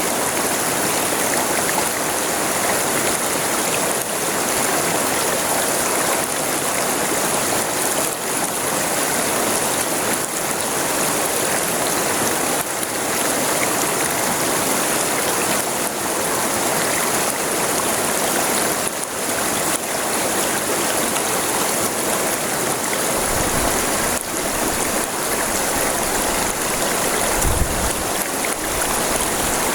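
River flowing steadily, a constant rushing of water. A few low rumbles come in near the end.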